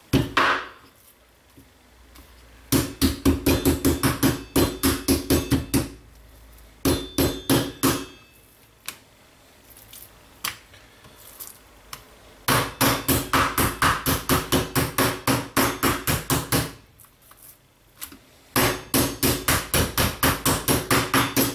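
Wooden meat mallet pounding slices of pork loin on a plastic cutting board: rapid blows, about four a second, in four runs with short pauses between them as the meat is turned and moved.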